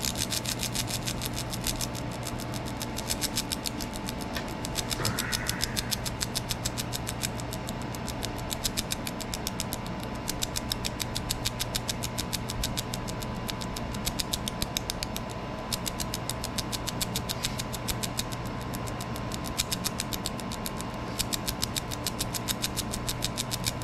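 Laser engraver running a stippling pass on an airsoft gun grip: a steady hum with a thin high tone over fast, even ticking.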